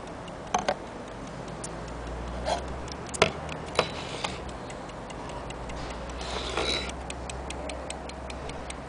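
Platform escapement of a c.1900 French brass drum clock ticking fast and evenly, about six ticks a second. A few louder knocks and a brief scrape come from the brass case being handled and turned.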